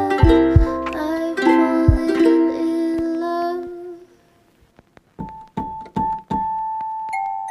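Instrumental background music: a run of sustained chords and notes that fades out about four seconds in, then after a short pause a few separate keyboard-like notes, one at a time.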